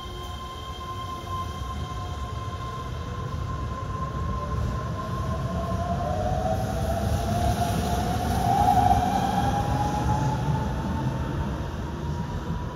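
Keihan 13000-series electric train pulling away and accelerating, its inverter-driven traction motors whining in a tone that rises in pitch as it gathers speed, over the rumble of wheels on rail. It grows loudest about nine seconds in, then eases off as the train draws away.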